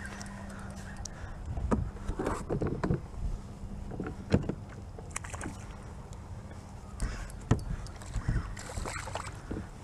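Scattered knocks and bumps on a plastic fishing kayak and water splashing as a hooked bunker (Atlantic menhaden) is fought up beside it, over a steady low hum. The knocks and splashes come in clusters, about two seconds in, around four seconds and again late on.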